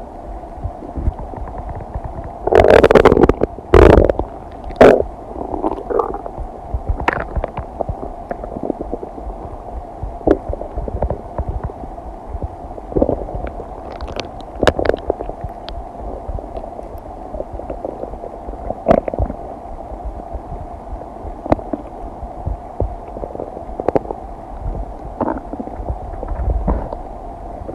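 Human stomach and intestines gurgling during digestion: a loud run of gurgles a few seconds in, then scattered short pops and gurgles.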